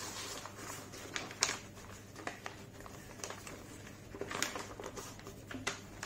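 A square of origami paper rustling and crinkling as hands fold it corner to corner along a diagonal. A few sharp crisp crackles stand out as the paper is pressed and slid.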